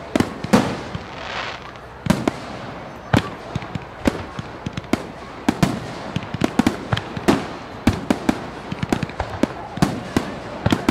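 Fireworks going off: a dense, irregular string of sharp bangs and crackles, several a second, with a hissing rush in the first couple of seconds.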